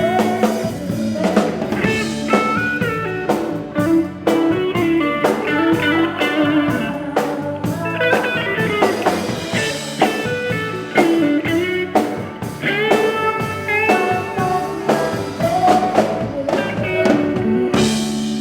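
A live band playing an instrumental passage: a lead guitar line over drums and bass, with a loud hit about 18 seconds in.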